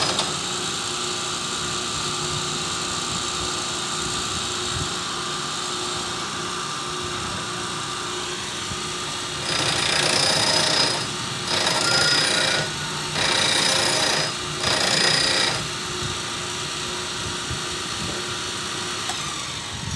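Homemade camshaft grinder: its electric motor and belt-driven grinding wheel run with a steady hum. About halfway through, the wheel grinds the steel camshaft's cam lobe in four bursts of a second or so each.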